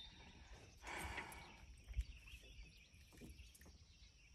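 Faint outdoor ambience with a steady high hiss. About a second in comes a brief soft splash as a largemouth bass is let back into the water, and near two seconds a short low knock.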